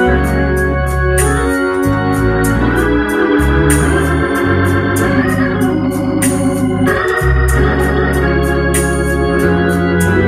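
Hammond organ played solo: sustained chords over a deep bass line, the chords changing every second or so.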